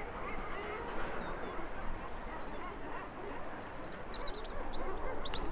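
A colony of common guillemots calling: many overlapping calls in a dense, continuous chorus. A few high, sharp chirps of a small bird come in over the chorus in the second half, with a low wind rumble underneath.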